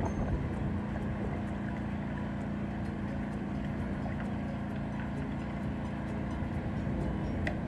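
An engine running steadily at a constant speed, a continuous low hum with no revving. A single sharp click near the end.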